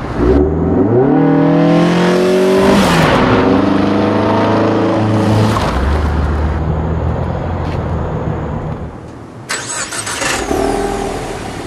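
2015 Ford Mustang EcoBoost Roush Stage 1's turbocharged 2.3-litre four-cylinder revving through its sport exhaust: two revs, each rising and dropping back, then lower steady running. A sudden sharp noise comes about nine and a half seconds in.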